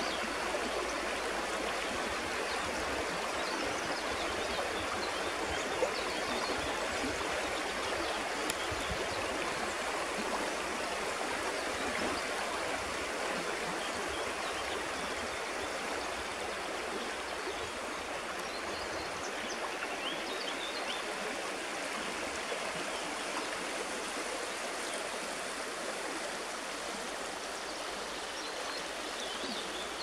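Shallow mountain river running over stones: a steady rushing of water.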